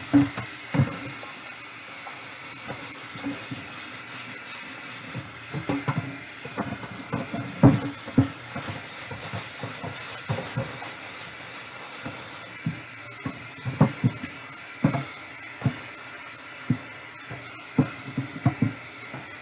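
Kitchen faucet running steadily into a metal sink while a cutting board is rinsed and scrubbed under it, with scattered knocks and clatters as the board bumps against the sink.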